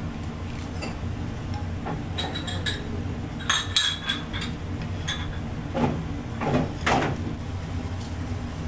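Light kitchenware clinks and knocks: chopsticks and a ceramic bowl tapping against a metal nabe pot as blocks of dried ramen noodles go in. A cluster of ringing clinks about halfway through, then a few duller knocks, over a steady low hum.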